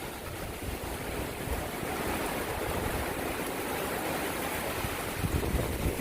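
Tornado storm wind blowing hard in a steady rush, with gusts buffeting the phone's microphone.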